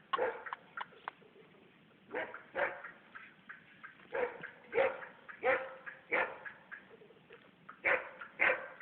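Birds calling: a series of short calls, some in pairs, repeated about once a second with short pauses between.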